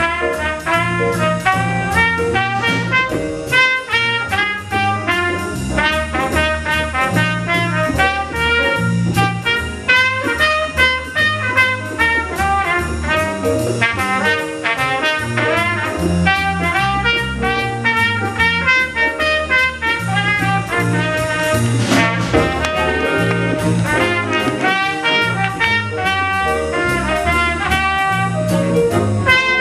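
High school jazz big band playing, brass to the fore over piano, bass and drums. A cymbal crash comes about 22 seconds in.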